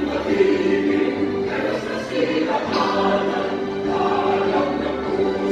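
A national anthem sung by a choir in long, held notes, played as a recording.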